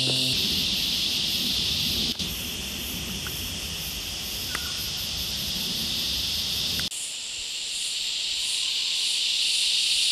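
Steady, high-pitched drone of a bush insect chorus, with a faint regular pulsing above it. A low rumble underneath stops abruptly about seven seconds in.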